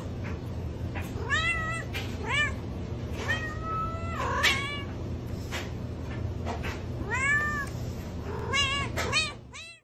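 Domestic cat meowing repeatedly: a series of short, arched meows, about seven in all, with one longer drawn-out meow about three to four seconds in, over a steady low hum.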